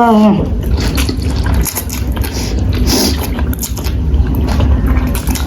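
Close-up eating sounds: instant noodles being slurped and chewed, with irregular wet smacks and clicks over a low rumble.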